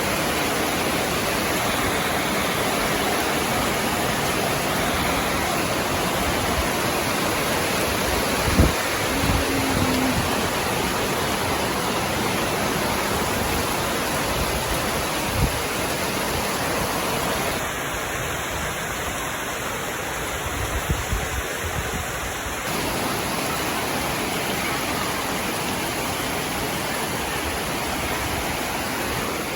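Heavy rain falling, a steady dense hiss, with a few brief knocks, the loudest about eight seconds in.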